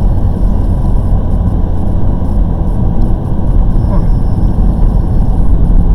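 Volkswagen Golf R driving on snowy roads: a steady low rumble of engine and tyre noise heard from inside the cabin.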